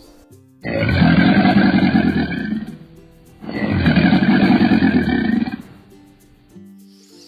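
A big cat roaring twice, each roar about two seconds long and loud, with a short pause between them.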